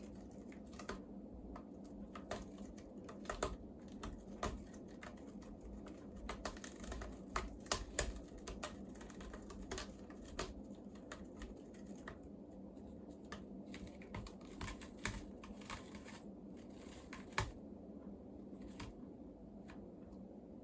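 Irregular scratchy clicks and short rasps on a freshly rewrapped sisal-rope cat scratching pole, busiest in the middle, with one sharp click near the end.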